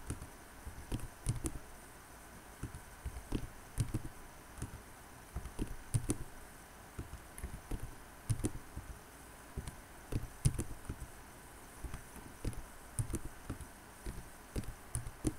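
Computer keyboard typing: irregular keystrokes a few a second, with short pauses between runs of keys.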